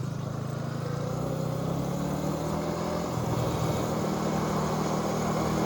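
A small vehicle motor running steadily, its pitch and level creeping up slowly.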